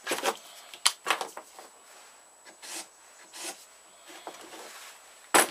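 Small handling sounds on a workbench as a marker pen is picked up and uncapped: a few short scratchy rubs and light knocks with quiet between, then one sharp, louder knock near the end.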